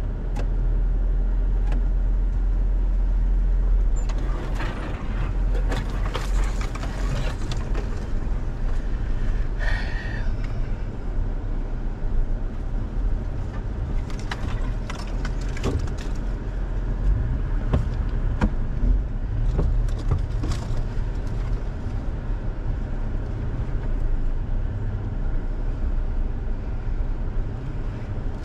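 Toyota Tacoma pickup's engine running steadily at crawling speed over a rough dirt trail, heard from inside the cab. Scattered clicks and knocks come through from the truck going over the ground.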